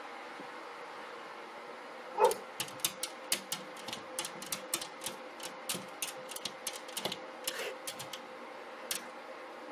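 A small dog's paws tapping and scratching against a glass patio door as she bounces on her hind legs: a quick, irregular run of sharp clicks, about three a second. The clicks start about two seconds in with the loudest knock and stop near the end.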